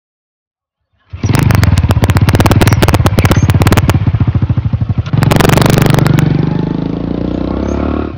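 Small air-cooled single-cylinder motorcycle engine kick-started. It catches about a second in and runs with a rapid, even firing beat. It is revved up about five seconds in, then settles to a steady run.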